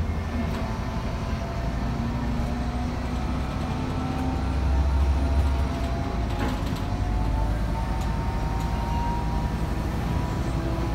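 City bus driving, heard from inside at the front: a steady low engine rumble that swells about five seconds in, with a faint whine that rises slowly in pitch as the bus picks up speed. A single click sounds about six and a half seconds in.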